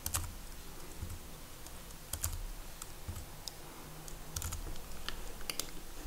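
Computer keyboard keystrokes: scattered, irregular taps, about eight or nine across the stretch, as entries are typed into the project plan. A faint low hum runs beneath.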